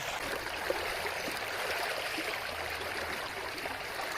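Water of a small river flowing steadily, a continuous rushing and trickling.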